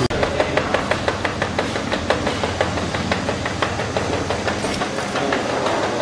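Power-strip assembly line machinery running, a steady clatter of rapid, irregular clicks and knocks over a continuous machine hum.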